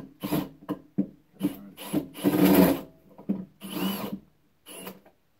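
Cordless drill driving screws into the wooden chair frame's pocket-hole joints in a series of short trigger pulses, with one longer run about two seconds in.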